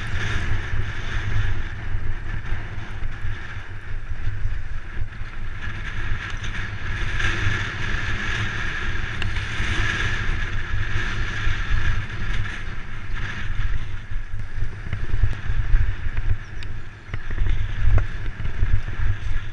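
Wind buffeting the microphone of a camera mounted on a fat bike ridden fast over rough grass and woodland track, with a continuous rushing and heavy low rumble from the ride.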